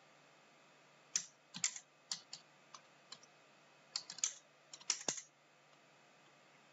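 Computer keyboard typing: a run of key clicks in short clusters that stops a little after five seconds in.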